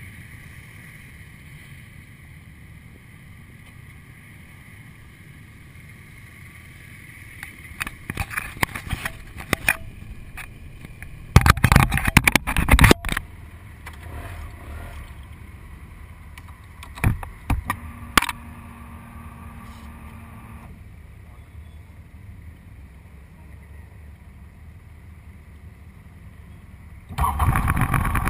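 Motorcycle engines idling, heard muffled through a bike-mounted camera, with a few short loud rushes of noise in the middle. About a second before the end the sound jumps much louder as the bike moves off.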